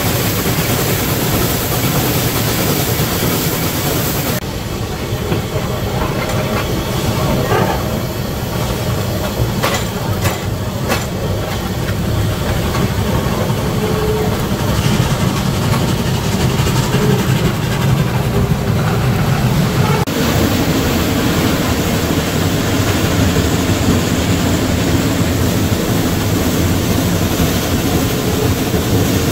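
Geared Shay steam locomotives working hard as they shove a train up a steep mountain grade: a loud, steady rumble with hissing steam and the clatter of wheels on rail. The sound changes abruptly about four seconds in and again about twenty seconds in.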